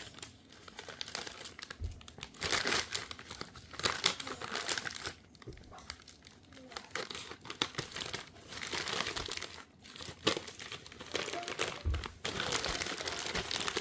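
Plastic and paper packaging of a new smartphone box being handled and unwrapped, crinkling and rustling in irregular bursts with short pauses between.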